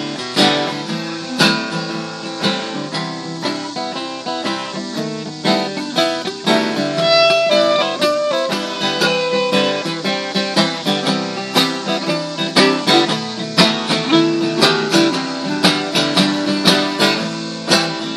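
Acoustic guitars strumming a steady rhythm while a clarinet plays a melody of held notes over them, with no singing: an instrumental break in a folk song.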